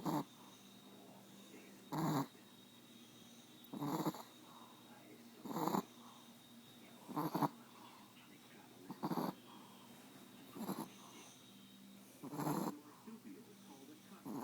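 Chihuahua snoring in its sleep: about eight short, wheezy snorts, one every second and a half to two seconds. The owner links the wheezing to a deviated septum.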